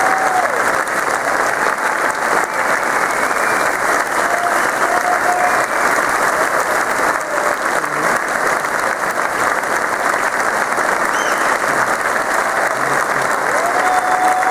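Large indoor audience applauding steadily, with a few cheers rising above the clapping near the start, about four seconds in and near the end.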